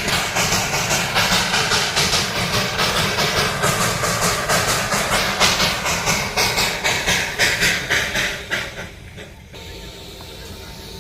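Darjeeling Himalayan Railway narrow-gauge steam locomotive chuffing with loud hiss, in a quick even beat of about three to four puffs a second. The chuffing drops away sharply about eight and a half seconds in, leaving a quieter steady rumble.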